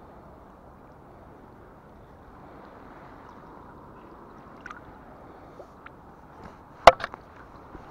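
River water flowing, a steady rushing hiss. Near the end comes one sharp click, followed quickly by a couple of lighter ticks.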